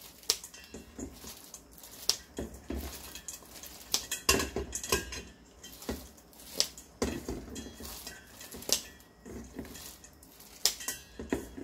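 Kitchen scissors snipping through dried shredded squid over a stainless steel bowl: irregular sharp metallic snips, about two a second.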